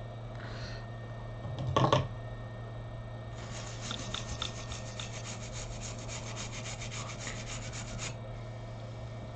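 Rapid back-and-forth scrubbing on the bare baseband CPU pads of an iPhone 6 logic board, cleaning the surface after the chip has been removed. It lasts about five seconds and follows a single knock about two seconds in.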